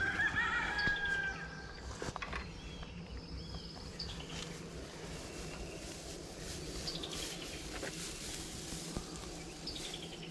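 Rural outdoor ambience: a steady faint hum of insects, with a short pitched animal call in the first second and a half and scattered bird chirps and falling runs of notes after it.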